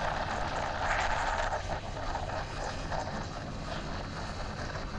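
Steady rushing noise of a motorcycle on the move, engine and passing air, a little louder in the first two seconds.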